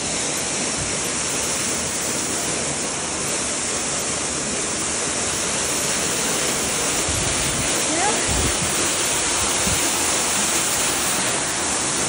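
Waterfall pouring steadily: a dense, even rush of falling water with no break.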